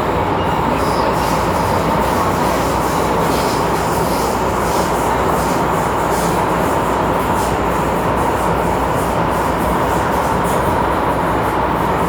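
MTR Tsuen Wan Line M-train running at speed, heard from inside the car: a steady rumble with a constant high whine and faint ticks.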